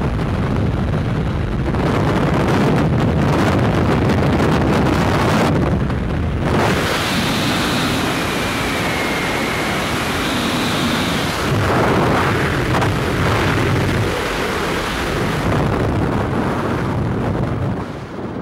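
Skydiving freefall wind rushing across the camera's microphone, loud and steady. It drops sharply just before the end as the parachute opens and the fall slows.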